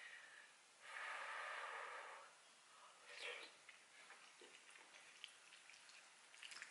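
Close-up eating sounds from a mouthful of hot macaroni goulash: one long breath out about a second in, then soft chewing and a metal spoon lightly clicking and scraping in a ceramic bowl.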